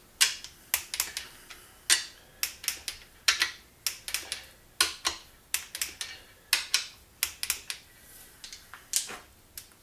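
A socket wrench clicking in short, irregular runs as the valve body bolts of a Turbo 400 transmission are gone over again to check that they are seated and torqued.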